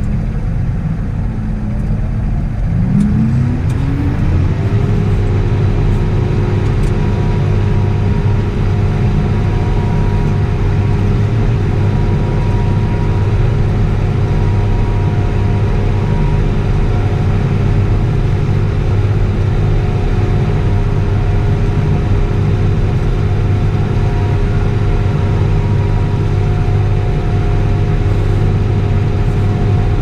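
Tractor engine rises in pitch about three seconds in and then runs steady at working speed, pulling and driving a Welger round baler that is picking up grass. Heard from inside the tractor cab, with a steady whine over the engine.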